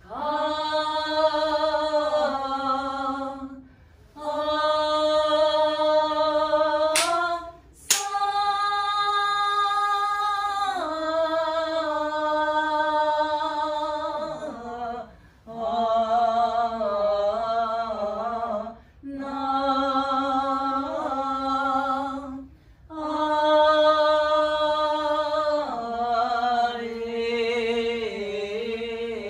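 A woman singing shirabyoshi song unaccompanied, one voice holding long notes that step between pitches, in phrases of a few seconds broken by short pauses for breath. Two sharp clicks about seven and eight seconds in.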